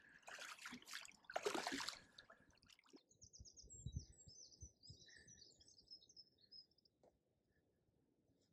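Rustling and handling noise for about three seconds as the landing net is worked at the bank, then a small songbird twittering faintly for a few seconds.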